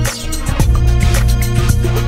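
Hip-hop beat looped from the Launchpad app's Hip Hop pack: a drum loop, organ bass line, hi-hat pattern and string lead playing together. The bass drops out briefly near the start.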